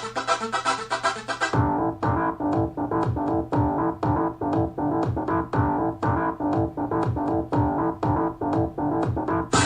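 Electronic dance music played through a Sony SRS-XB22 Bluetooth speaker with Extra Bass mode on. About a second and a half in, the full mix drops away to a keyboard riff over a steady beat and deep bass, and the full mix comes back near the end.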